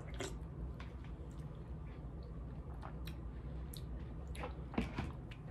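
A person eating with a spoon from a small plastic container: soft chewing and scattered small clicks, with one sharper click a little before the end.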